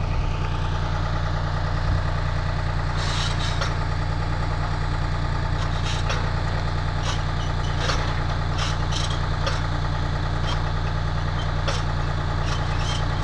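Heavy construction machinery engine running steadily at a low hum while a crane lifts a steel roof truss, with short clicks now and then.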